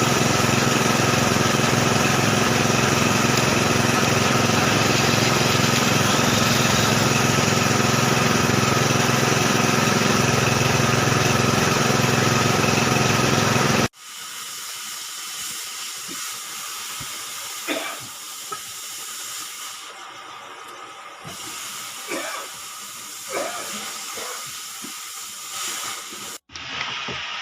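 Excavator diesel engine running steadily and loudly, with a strong hiss. About halfway through it cuts off suddenly to a much quieter hiss with a few scattered knocks and clicks.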